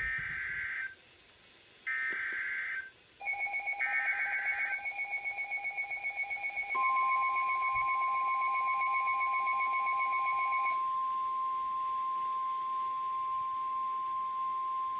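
NOAA Weather Radio emergency alert: three short screeching bursts of SAME header data. A second alarm, with a fast-pulsing beep, comes in over them about three seconds in and stops near eleven seconds. The steady single-pitch Weather Radio warning alarm tone starts about seven seconds in and holds.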